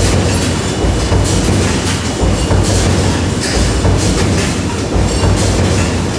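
Stamping presses running in a press hall: repeated clattering strikes, roughly one a second, over a steady low machine hum.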